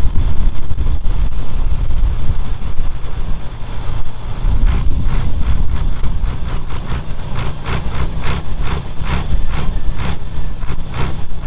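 Engine of a vehicle with a vertical exhaust stack rumbling as it rolls slowly, heard from on board. From about halfway through, a regular ticking about three times a second.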